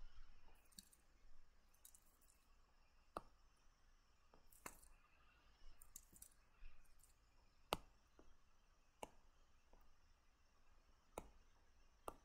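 Scattered faint clicks and taps from a computer drawing setup: the mouse or stylus working as the lines are drawn. About half a dozen sharper clicks among fainter ones, irregular, over near silence.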